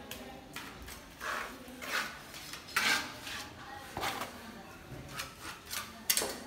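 Steel mason's trowel scraping and scooping cement mortar in a metal pan and spreading it into the floor channel: a series of short scrapes, with a sharp clink about six seconds in.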